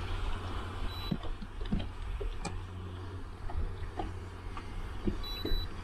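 Fishing-boat ambience: a steady low rumble with scattered light clicks and knocks, and short high electronic beeps about a second in and again near the end.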